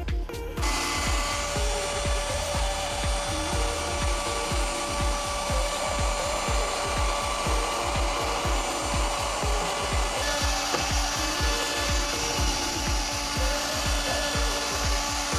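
A power tool grinding away at material, with a steady motor whine in a dense hiss. The whine shifts in pitch about ten seconds in. Background music with a regular beat runs underneath.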